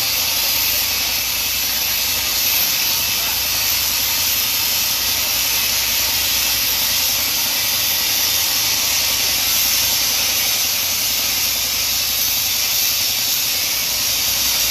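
A steady, loud hiss that does not change.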